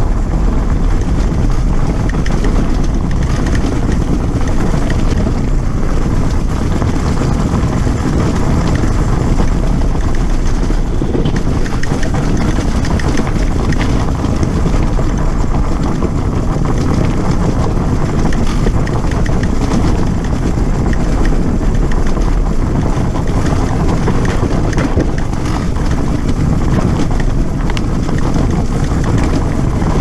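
Dirt bike engine running steadily while riding along a rocky gravel trail, with wind buffeting the microphone.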